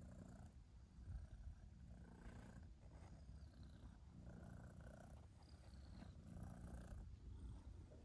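A domestic cat purring faintly, close to the microphone: a low, steady rumble.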